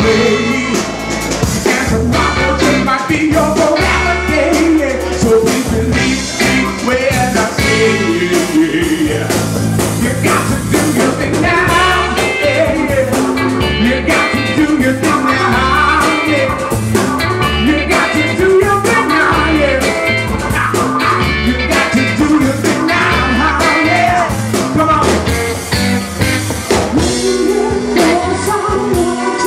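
Live soul band playing: a male lead vocal sung into a microphone over electric guitar, bass guitar and drum kit, with a steady beat.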